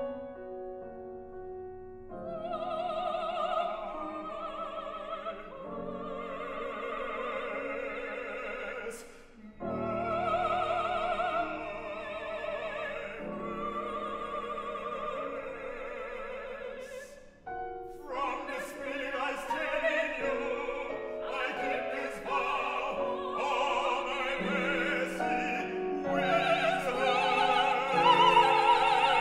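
Operatic duet: a man and a woman singing in classical style with vibrato, to piano accompaniment. The phrases break briefly twice, and the singing grows fuller and louder in the second half.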